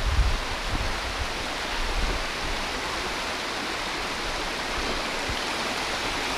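Steady rush of the creek running over rock at the top of Hemmed In Hollow Falls, flowing low. A few brief low rumbles sound in the first second.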